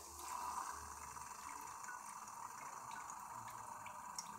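Liquid pouring steadily from a thin plastic tube into a nonstick frying pan, driven by a small pump, with light splashing and little drip ticks.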